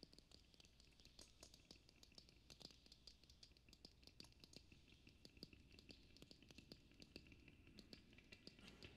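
Near silence with faint, rapid, irregular small clicks and scratches.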